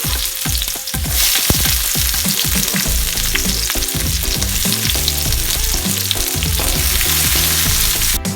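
Food sizzling in hot vegetable oil in a frying pan, the base of a stir-fry being cooked; the sizzle gets louder about a second in.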